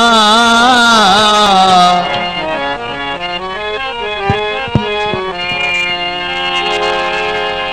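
A held sung note with vibrato ends about two seconds in. A harmonium then plays a stepped melody, the introduction to a Punjabi qaseeda, with two short knocks near the middle.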